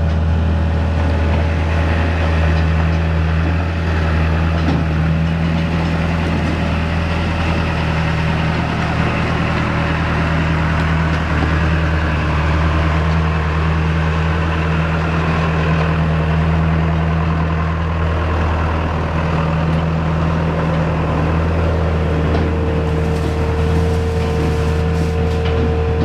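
An engine running at a steady speed, a constant low drone, with a thin higher whine that grows stronger near the end.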